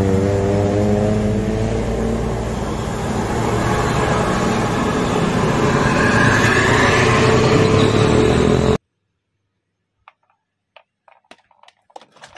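Diesel engine of a large coach bus running under load as it manoeuvres round a tight bend, with a rising whine about two-thirds of the way through; the sound cuts off suddenly. A few light clicks of plastic toys being handled follow.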